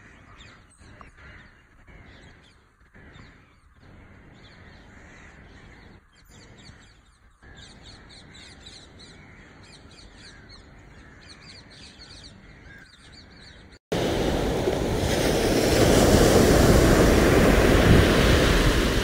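Birds chirping in quick, repeated high calls over a faint outdoor background. About two-thirds of the way in, the sound switches abruptly to the much louder, steady rush of sea waves breaking on a beach.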